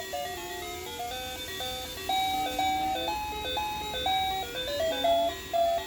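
Pororo toy vacuum cleaner playing its electronic melody: a simple tune of plain beeping notes stepping up and down.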